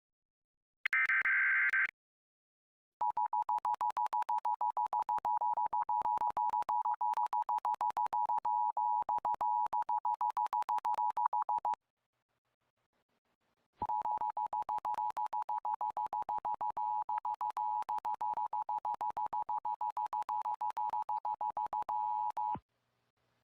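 Emergency Alert System tones: a short screeching SAME data burst about a second in, then the two-tone EAS attention signal. The attention signal is chopped by rapid stutters and drops out for about two seconds midway, because the stream is lagging.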